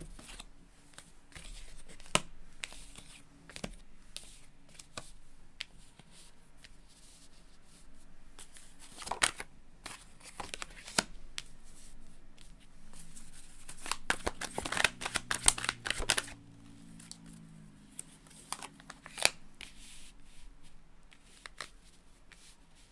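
Tarot cards being shuffled by hand: a run of soft card-on-card clicks and riffling, with a denser stretch of shuffling about nine seconds in and again from about fourteen to sixteen seconds.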